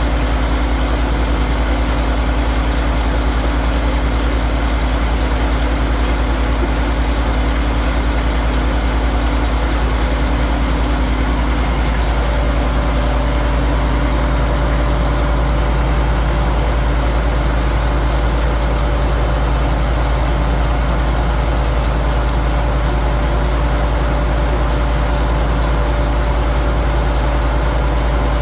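Firewood processor's engine running steadily under load, its tone shifting slightly about twelve seconds in.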